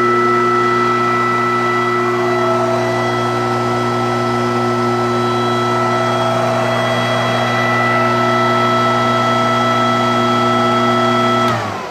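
Single-phase electric grinder motor, not yet fitted with pulleys, running unloaded with a steady hum and whine. Near the end it is switched off and the sound drops away as the motor begins to spin down.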